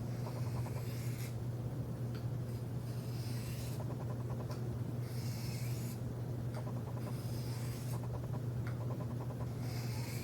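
Knife edge being swiped along a fine diamond sharpening plate: several separate scraping strokes, each about a second or two long with pauses between. The last strokes are made at a raised angle to set a micro bevel. A steady low hum runs underneath.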